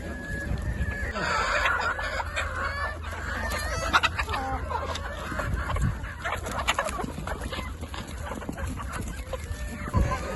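A flock of chickens clucking continuously, many short overlapping calls, with a few sharp knocks, the loudest about four seconds in and near the end.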